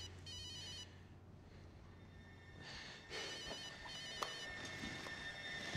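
Cell phone ringing: a trilling electronic ringtone in short repeated bursts, one at the start and another pair about three seconds in.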